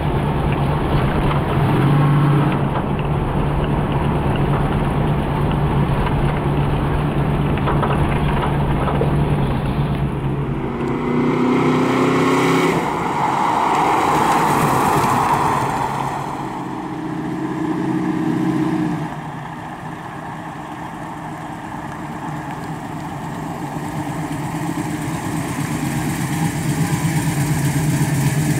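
1979 Pontiac Trans Am's 455 cubic-inch big-block Pontiac V8 running as the car is driven slowly. It drones steadily when heard from inside the cabin, then, heard from outside, it revs up and grows louder around the middle before settling back to a steady low run.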